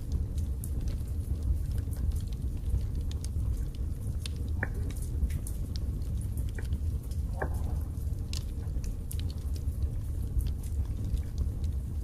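Split-log wood fire burning in a fireplace: a steady low rumble of flames under scattered crackles and pops, with two brief squeaky whistles midway.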